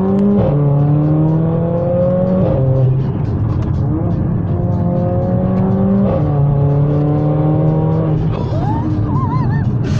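Performance car's engine under hard acceleration from a countdown launch, heard from inside the cabin. The engine note climbs steadily, then drops abruptly at each upshift, about four times through the gears.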